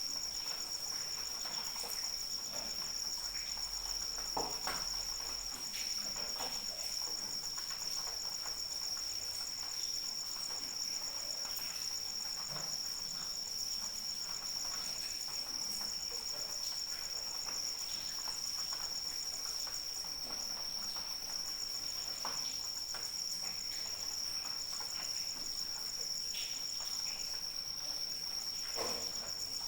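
Crickets chirring in a continuous high-pitched trill, with a second pulsing trill just above it that drops out briefly a few times. Under them is light rain with scattered drips.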